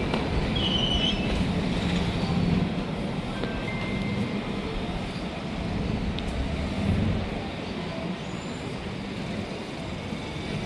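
Steady rumble of busy city street traffic.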